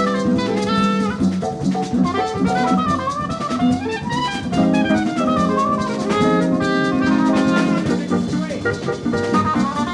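Jazz quintet playing live: a lead line of quick runs up and down the scale over drum kit, bass and sustained low chords.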